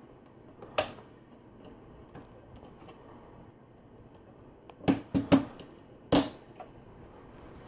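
Plastic LEGO pieces clicking and knocking as they are handled and pressed together: a single click about a second in, then a quick cluster of four clicks around five to six seconds in.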